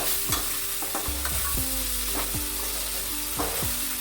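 Chopped tomatoes and fried onions sizzling in ghee in a heavy-bottomed pot, with a spoon stirring and scraping against the pot in repeated, irregular strokes.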